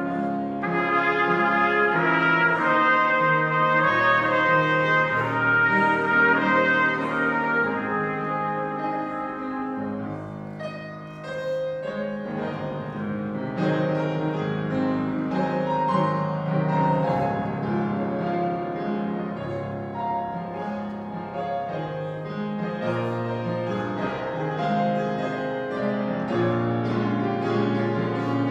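Trumpet playing a melody over grand piano accompaniment; about ten seconds in the trumpet phrase ends and the Yamaha grand piano carries on alone.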